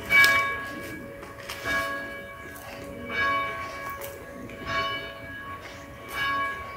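Bell tolling, struck at an even pace about every one and a half seconds, each stroke ringing on into the next.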